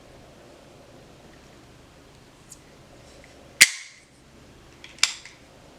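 Two sharp clicks from parts of an AR-9 pistol's buffer tube assembly being worked off. The first, about three and a half seconds in, is the louder and rings briefly; the second comes about a second and a half later.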